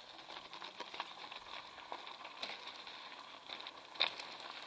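Mountain bikes rolling past close by on a gravel track: tyres crackling over loose stones, with scattered small clicks and one sharper click about four seconds in.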